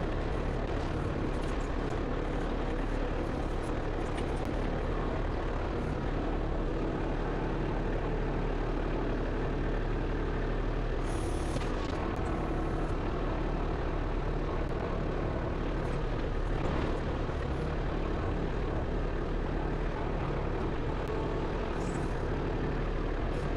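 Compact tractor-backhoe engine running steadily under load as the backhoe digs and dumps dirt, with short clatters about halfway through and again near the end.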